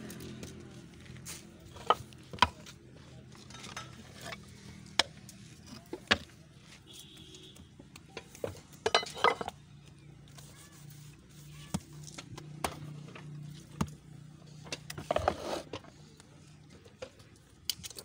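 Scattered sharp knocks and clatter of a hand-operated clay tile press being worked: metal mould parts and wooden pallets handled and set in place, with two longer bursts of clattering and scraping. A faint steady low hum runs underneath.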